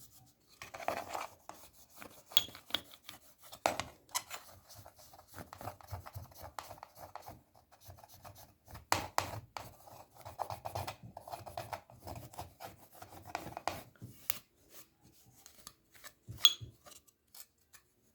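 A brush scrubbing the plastic back casing of a remote control with window cleaner, in short irregular strokes, with a few sharp clicks as the casing is handled.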